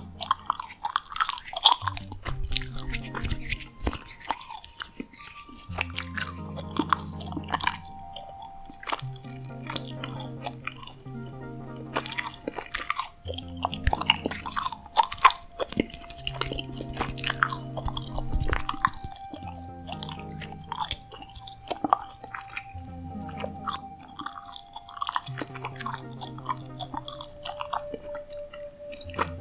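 Gum chewed close to the microphone: a dense run of sharp wet clicks and smacks. Under it runs soft background music of long held notes.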